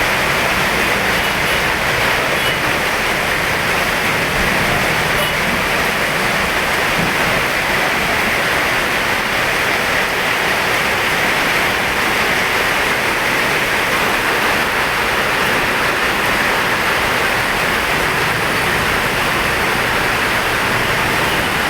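Heavy rain pouring down, a steady, unbroken hiss.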